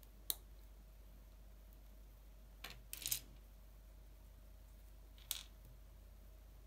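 Small plastic LEGO pieces clicking as they are pressed together and handled on a hard tabletop: a sharp click about a third of a second in, a short run of clicks around three seconds, and one more click past five seconds.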